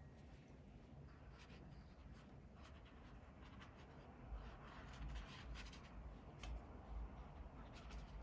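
Faint scratching of a pen drawing short strokes on sketchbook paper, with a few soft low bumps.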